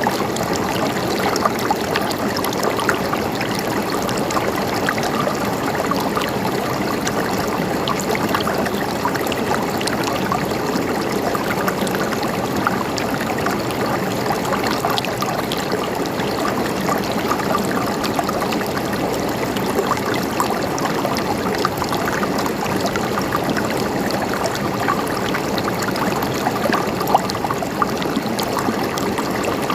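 Water gently gurgling and trickling in a steady flow, with small splashes and drips through it.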